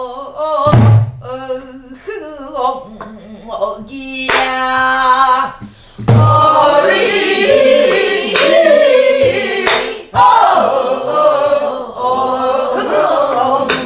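A group singing a Korean Namdo folk song in unison, led by a woman's voice, with a few heavy strokes of a stick on a buk barrel drum marking the rhythm. The strongest strokes come about a second in and about six seconds in.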